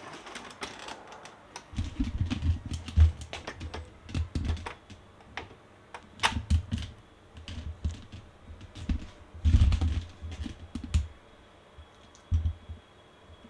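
Epson L361 ink-tank printer's mechanism clicking and clattering in irregular bursts, with dull low knocks, loudest about three and nine and a half seconds in, as the print head carriage and gears run.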